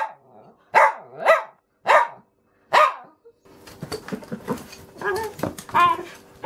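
A small dog barks four times in the first three seconds. From about halfway on, a dachshund scratches and chews at the corner of a cardboard box, a busy rustling and clicking, broken by a few short high yips.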